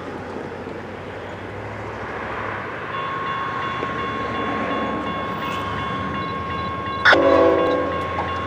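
Approaching CSX freight train: a low rumble, with a steady high tone from about three seconds in, then a sudden louder horn blast about seven seconds in, lasting about a second.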